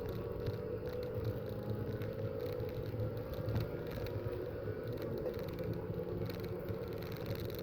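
Racing car engine running steadily at speed, its pitch drifting slowly upward, heard through a poor-quality, muddy recording.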